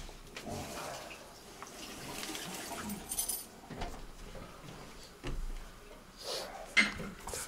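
Water running from a tap while hands are washed at a sink, with a few light knocks.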